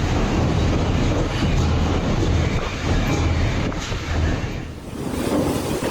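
Strong wind buffeting the microphone in a dust storm: a dense, continuous rumbling noise that eases briefly about five seconds in.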